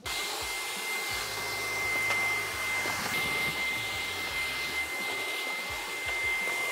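Dyson cordless stick vacuum switching on abruptly and running steadily while sucking up dust, a high steady whine over the rush of its airflow.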